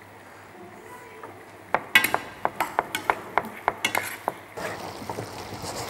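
Kitchen knife chopping a mushroom on a cutting board: a quick run of sharp strikes, several a second, starting a little under two seconds in. Near the end it gives way to a steady sizzle from the stew frying in the pan.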